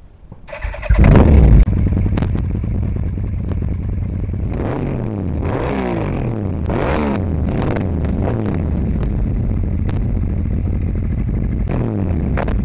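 2013 Yamaha Vmax V4 engine firing up through a carbon-fibre slip-on exhaust, with a very loud burst about a second in, then running with several blips of the throttle, the revs rising and falling back to idle.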